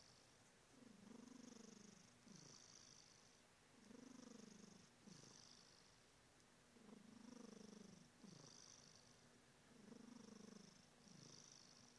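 Domestic cat snoring and purring, faint. A low pulsing purr swells and fades with each breath, about every three seconds, with a breathy hiss between the swells.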